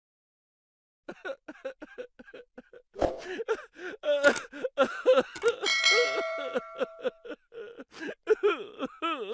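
Comedy sound effects played back to back: rapid repeated short voice-like bursts, a sudden clang about three seconds in, and a ringing ding held for over a second near the middle, with falling-pitch sweeps near the end.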